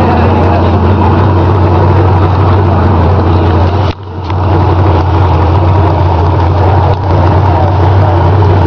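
Chevy Z71 4x4 pickup engine running loud and steady. It drops off briefly about four seconds in, then picks back up.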